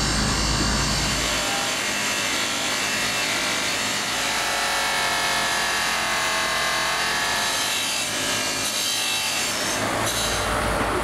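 A spinning buffing wheel pressed against a metal pressure-cooker pot as it is polished: a steady, rough rubbing hiss with a faint whine in the middle. A low motor hum is heard at the start, drops away after a second or so, and returns near the end.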